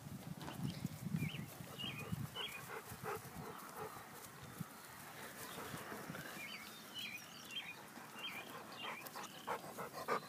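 Greater Swiss Mountain Dog puppies panting and snuffling, with many short, high chirps scattered through.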